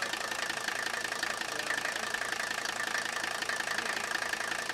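Mercedes OM617 mechanically injected inline-five diesel idling with an even, rapid diesel clatter and a steady high whine over it.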